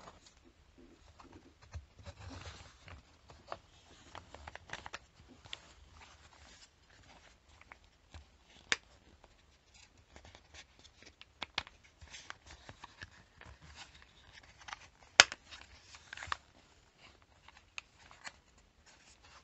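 Thin laser-cut plywood kit parts being handled and fitted together: scattered light wooden clicks and taps with soft rubbing and sliding between them. Two sharper clicks stand out, about nine and fifteen seconds in.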